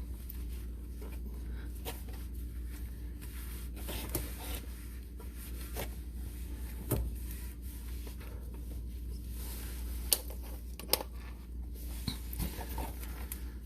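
Scattered light clicks and knocks from handling tools and parts under a car during an oil change, the sharpest about two-thirds of the way through, with faint rubbing between them over a steady low hum.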